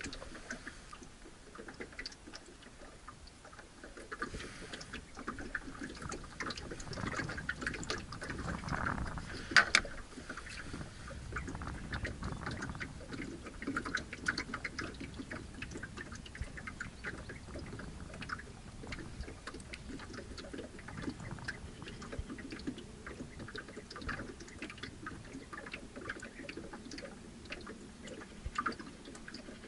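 Small water lapping and trickling against a boat hull, with scattered light clicks and ticks from fishing tackle being handled; one sharper click about ten seconds in.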